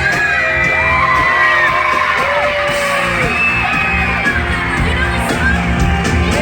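Loud music over a concert sound system, with a crowd of fans screaming and whooping over it in long, high, wavering cries.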